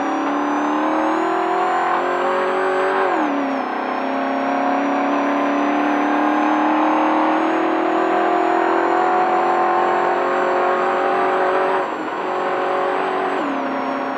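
Desert race truck's engine accelerating hard. Its pitch climbs, falls away about three seconds in, climbs slowly and steadily again for about eight seconds, then drops off near the end.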